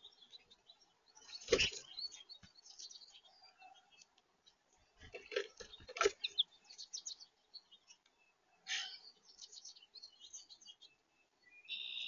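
Small birds at a feeder chirping in short, high notes, with two loud sharp knocks, about a second and a half in and again about six seconds in, and a brief flutter near the end.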